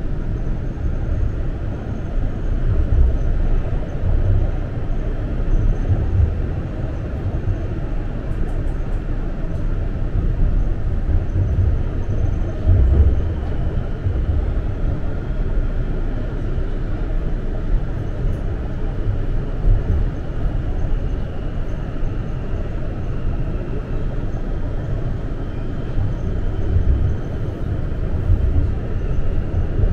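TTC subway car running through the tunnel between stations, heard from inside the car: a steady, low rumble of wheels on rail with small swells in loudness.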